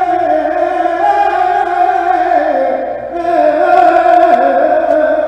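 A man singing a saeta, the unaccompanied flamenco devotional song of Holy Week, to the image of the Virgin: long held, wavering, ornamented notes that sink slowly in pitch, with a brief breath about three seconds in.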